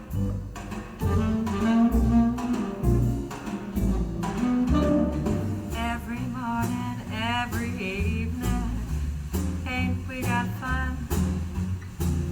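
Swing-jazz music played through bookshelf hi-fi speakers and a subwoofer, heard in the room: a double bass stepping through low notes, joined about halfway through by a melody line with vibrato.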